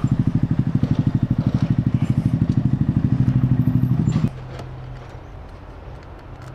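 Honda Grom's 125 cc single-cylinder four-stroke engine running at low revs with an even, rapid putt, then switched off abruptly about four seconds in. A low steady hum remains afterward.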